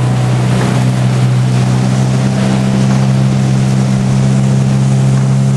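Outboard motor of a coaching launch running at a steady speed, a constant low drone with a steady hiss of water and air over it.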